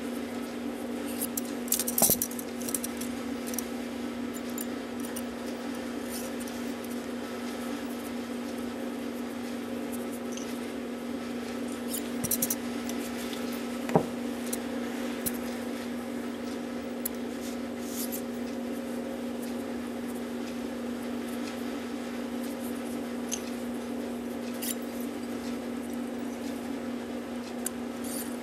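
Light scraping and small clicks of a steel smoothing broach in a pin vise being worked through the freshly bushed brass pivot holes of a Regula cuckoo clock movement plate, with a few sharper clicks, over a steady hum.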